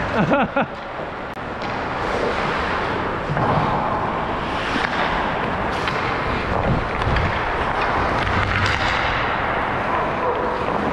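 Steady rushing noise of a skater on the move: wind across a body-worn camera's microphone mixed with skate blades carving and scraping the ice, with a few sharp clacks from sticks and puck.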